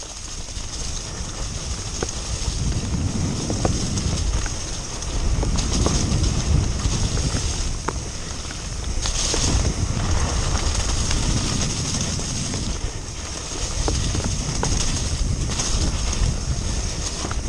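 Mountain bike ridden fast down a wet dirt singletrack: steady wind rumble on the microphone with tyre and drivetrain noise, and a few sharp knocks as the bike takes bumps.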